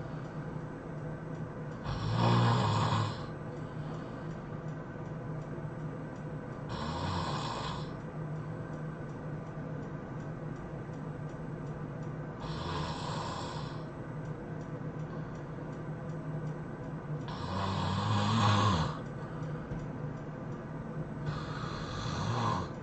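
A person snoring in their sleep: five loud snores about every five seconds, the one about eighteen seconds in the longest, over a steady low hum.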